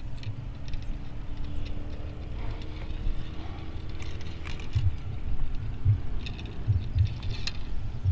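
Low rumbling and thumps of wind and handling on the microphone, with scattered light clicks and taps. A faint hum rises slowly in pitch during the first half.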